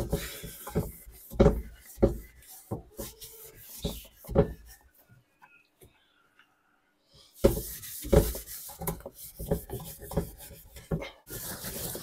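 A hand scrubbing the soapy, detergent-covered plastic of a twin-tub washing machine in quick, irregular strokes. The strokes pause for about two seconds midway, then start again.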